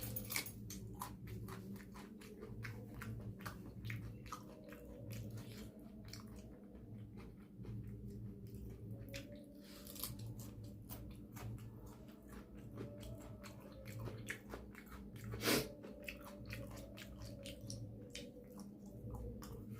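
A person chewing a mouthful of rice and mutton curry close to the microphone, with small wet mouth clicks and a steady chewing rhythm of about one chew a second. One louder click comes about three quarters of the way through.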